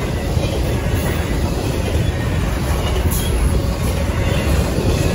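Freight train rolling past, a steady low rumble of steel wheels on the rails.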